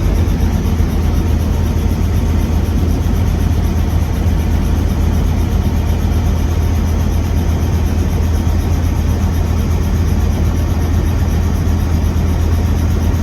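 Helicopter engine and rotor noise: a loud, steady low drone that does not change.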